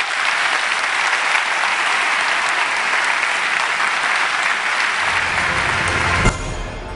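Large audience applauding steadily. About five seconds in, a deep low throb of outro music comes in with a thump near the end, and the clapping fades under it.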